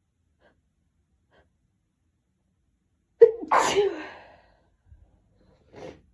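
A person's sneeze about three seconds in, a sudden sharp burst that trails off over about a second, after faint catching breaths of the build-up. A short breath follows near the end.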